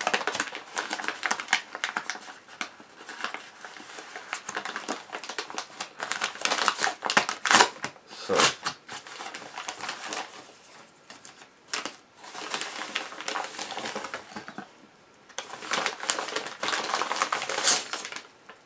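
Parcel's plastic mailer being torn open and rummaged through by hand: irregular crinkling and rustling, with louder bursts about a third of the way in and again near the end.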